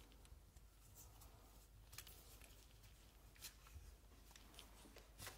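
Near silence with faint, scattered small ticks and rustles from gloved hands fitting a solvent-dampened cleaning patch onto the jag of a cleaning rod.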